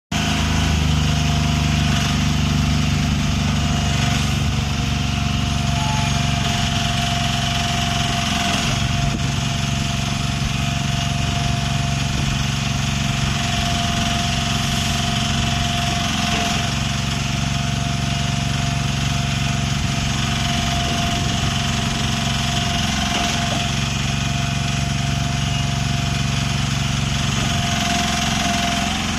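Mini excavator's small engine running steadily, with a constant thin whine above the engine note. The engine note shifts slightly a few times.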